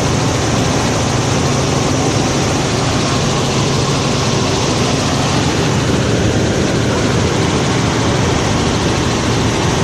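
Helicopter running steadily: a loud, even rush of engine and rotor noise with a low steady hum underneath.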